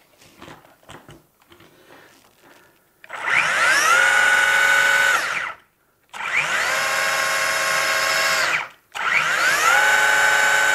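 Electric motor and drivetrain of an Axial Yeti Score trophy truck RC model, run on a stand with the wheels spinning free: three throttle bursts, each a whine that rises, holds a steady high pitch for a couple of seconds, then falls away. The third burst is still going at the end. Before them come a few faint handling clicks.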